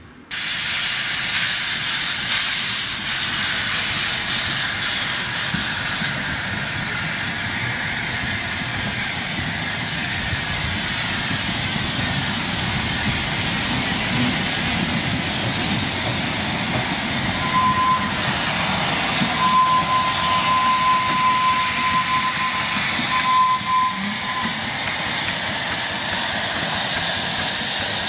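Narrow gauge steam locomotives working at close range, a loud steady hiss of escaping steam. About two-thirds of the way through, a thin steady whistle sounds three times, the middle blast the longest.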